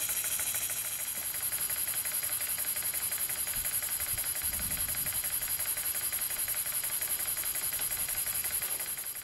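Small model mill engine running steadily on compressed air, its exhaust giving a rapid, even puffing over a strong hiss as it drives a toy Ferris wheel by belt. The sound cuts off suddenly at the end.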